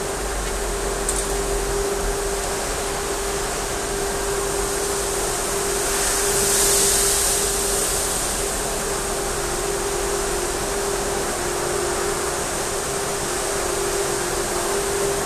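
Self-service dog wash station's machinery running: a steady whirring noise with a constant hum, the hiss swelling for a couple of seconds about halfway through.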